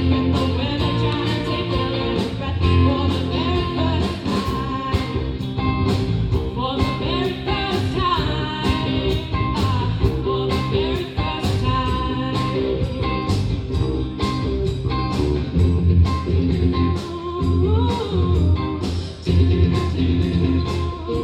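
Live band playing through PA speakers: singing over guitar and a steady beat.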